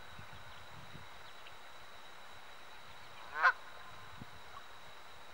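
A goose gives a single loud honk about three and a half seconds in, the call of an angry goose on its pond.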